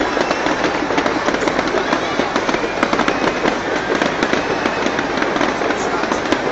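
Fireworks crackling and popping in a dense, unbroken string of sharp cracks.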